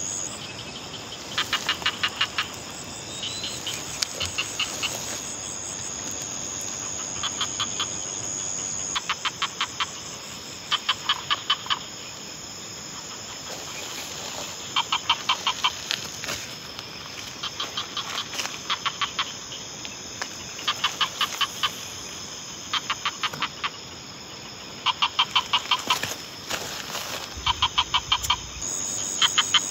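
Repeated calls of a night animal, which the camper takes for a bird: short, quick trains of about eight clicking notes, coming again every two seconds or so. Steady cricket chirring runs underneath.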